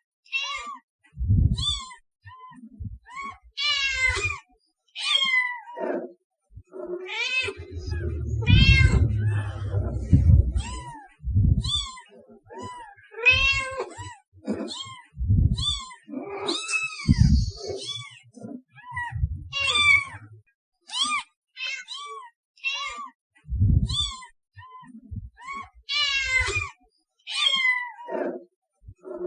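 Cats meowing repeatedly: many short, high-pitched mews, often overlapping and several a second, with a few low thumps mixed in.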